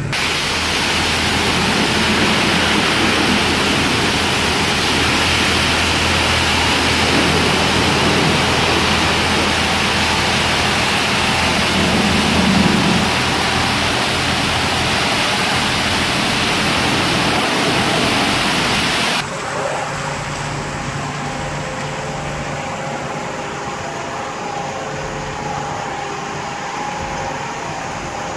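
Washworld touchless car wash's high-velocity water jets spraying a car, a loud steady hiss of water. About two-thirds of the way in the spray cuts off abruptly, leaving a quieter machine hum with a few steady tones as the wash moves to its foam stage.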